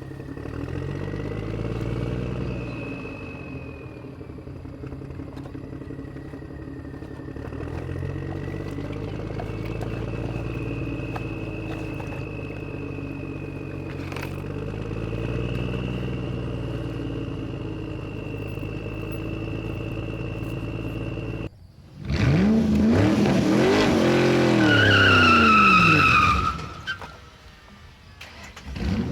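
Vehicle engines revving, rising and falling in pitch, with a thin high whine over them. About 22 s in it breaks off briefly, then comes back louder with sharp up-and-down revs and a high squeal for several seconds before dying away.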